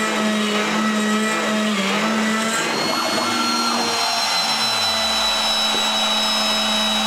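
Kress router spindle on a DIY CNC mill cutting aluminium with a three-flute 8 mm carbide end mill: a steady motor whine with the rougher ringing of the cut, which ends about three to four seconds in as the cutter leaves the part. The spindle keeps running after that, and a lower tone slides downward just after the cut ends.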